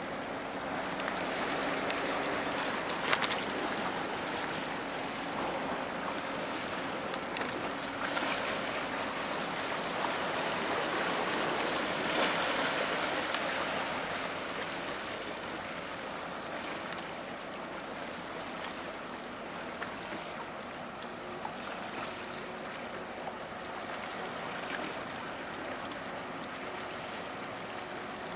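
Steady rush of moving water and wind at a harbour entrance, swelling a little twice. Under it is a faint low engine hum from the passing container ship and its escorting tug.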